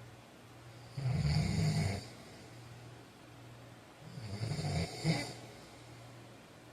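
A man snoring in his sleep: two loud snores about three seconds apart, the second ending with a brief sharper peak, over a faint steady low hum.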